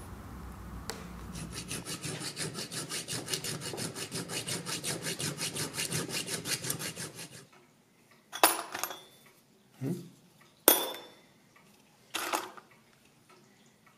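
A flat hand file rasping back and forth on a brass bullet casing in quick, even strokes, about four a second, stopping about seven seconds in. Then four sharp metallic clinks, as spent brass shell casings knock together while being picked through.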